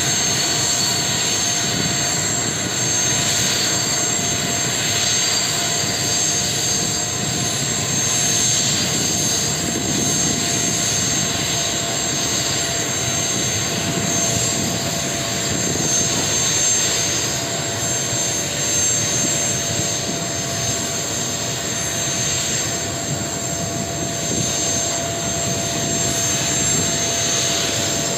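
Boeing Vertol 234 Chinook's twin turboshaft engines running on the ground, a steady high turbine whine over a broad low rush, with its tandem rotors turning.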